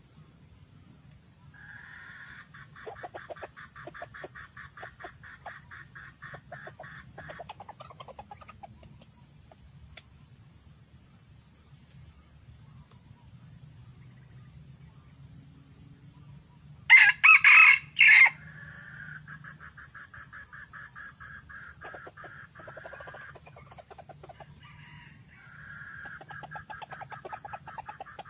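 A junglefowl rooster crows once, loud and short, in broken syllables about two-thirds of the way through. Long pulsing buzzes and steady high-pitched tones run underneath.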